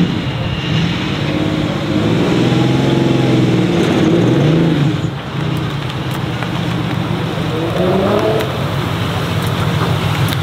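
Volkswagen Phaeton W12 engine in a Volkswagen Fridolin pulling away and accelerating, its note rising in pitch, dropping back about five seconds in, then rising again near eight seconds.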